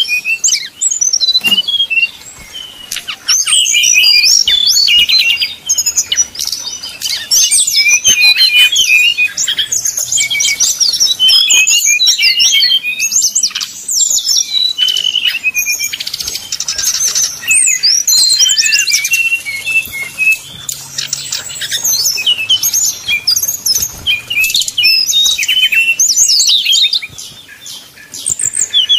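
Caged sikatan rimba dada coklat (jungle flycatcher) singing a loud, rapid, varied string of high chirps and trills, with short breaks about two seconds in and near the end.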